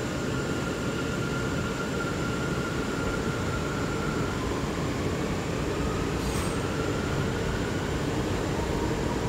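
Bombardier R179 subway car heard from inside as the train pulls out of a station: a steady rumble of wheels on rail with a thin propulsion whine that holds, then drops out and is replaced by one rising slowly in pitch as the train gathers speed. One brief sharp click about six seconds in.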